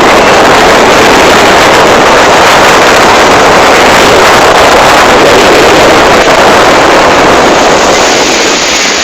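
Motorboat underway: a loud, steady rush of wind and water noise with the boat's engine, wind buffeting the phone's microphone. It eases slightly near the end.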